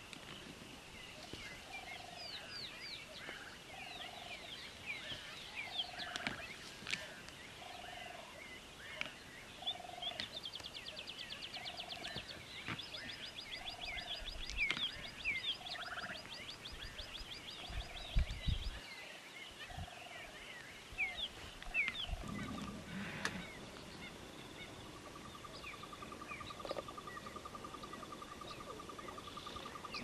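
Several wild birds calling in the bush. A low note repeats about once a second through the first half, rapid high trills run through the middle, and a lower trill comes near the end, with a brief low rumble about two-thirds of the way through.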